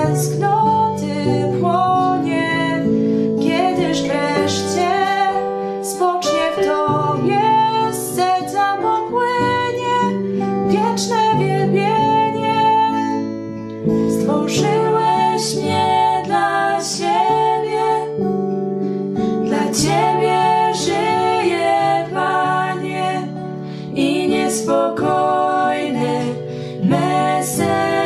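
Slow instrumental hymn music: acoustic guitar accompaniment with a held melody line above it.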